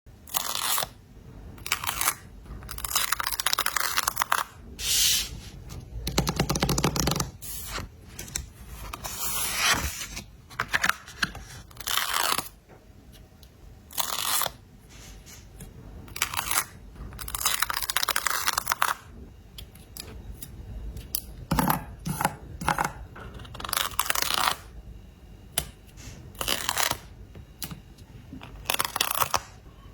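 Paper stickers being peeled off their backing sheets and pressed down, a string of short tearing rasps of varying length with brief pauses between them.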